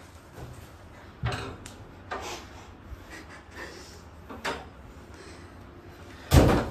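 Scattered knocks and bumps of people moving about a small room, about five light ones and then a louder thump about six seconds in.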